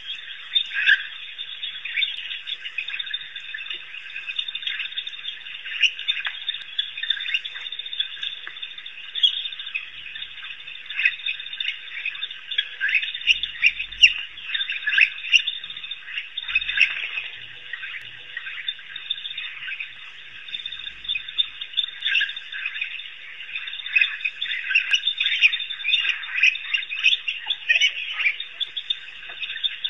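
African wild dogs giving a continuous stream of high-pitched, overlapping twittering chirps and squeals while the pack feeds at a kill.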